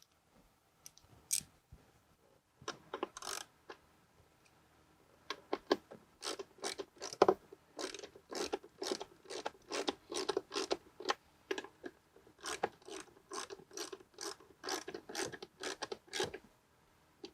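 Ratchet wrench with a socket clicking in quick runs as it drives in a glove box latch screw, with a few scattered clicks before the steady ratcheting starts.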